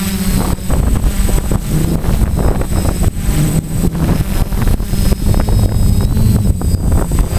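Quadcopter's electric motors and propellers whirring close to an onboard camera, their pitch shifting as it manoeuvres, over a rumble of wind on the microphone.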